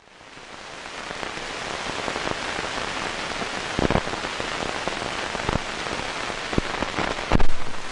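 A steady rain-like hiss that fades in over the first couple of seconds, broken by a few sharp cracks, the loudest one near the end.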